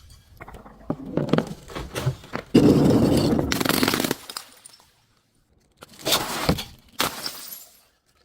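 Things being crushed and breaking: a run of cracks and crunches, loudest and densest from about 2.5 to 4 seconds in, then a short near-silent gap and two more sharp breaks near the end.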